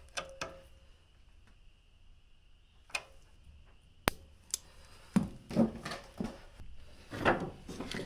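Scattered sharp clicks and taps of pliers and hand tools on a riding mower's carburetor and engine parts, with denser handling and rustling noises in the last few seconds. A faint steady high tone runs under the first half.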